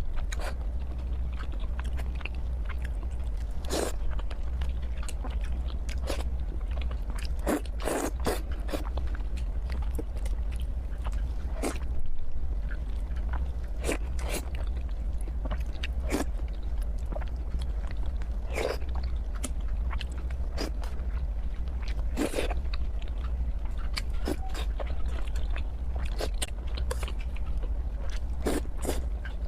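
Close-miked eating sounds of a person biting and chewing Thai five-spice braised pork (moo palo): irregular short clicks of the mouth, a few a second at most, over a steady low hum.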